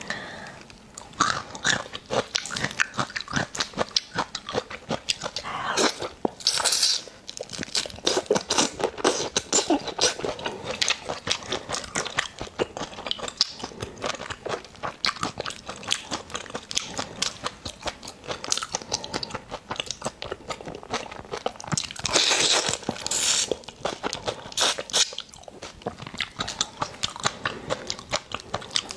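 Close-up eating sounds of raw marinated shrimp: shells cracking and tearing under the fingers and wet, crunchy chewing, a dense run of sharp clicks and crackles. Two longer, noisier stretches stand out, about six seconds in and again about twenty-two seconds in.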